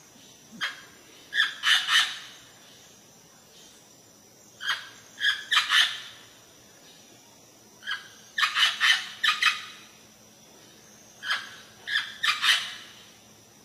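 Amazon parrot calling: bouts of two to five loud, harsh squawks, coming every few seconds.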